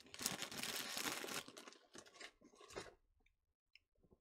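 A crinkly plastic snack bag of Flamin' Hot Funyuns being handled, crackling steadily for about a second and a half, then a few softer rustles.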